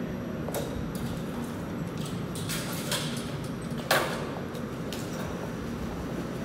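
TTC Flexity streetcar at a platform, its steady electrical hum running under a few sharp clicks and knocks, the loudest about four seconds in.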